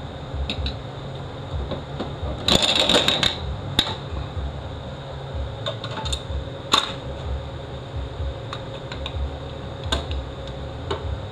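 Scattered metal clicks and clinks of large snap ring pliers and a stiff snap ring being worked into its groove in a 6L80 automatic transmission case, with a quick cluster of clicks about two and a half seconds in, over a steady low hum.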